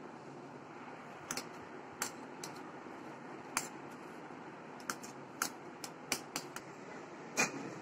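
A metal spoon clicking and knocking against a stainless-steel plate as it works soft homemade butter, about ten sharp clicks at irregular times over a steady background hiss.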